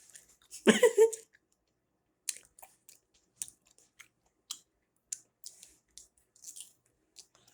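A person's mouth noises close to the microphone: one short, loud vocal sound about a second in, then scattered small clicks and smacks like chewing.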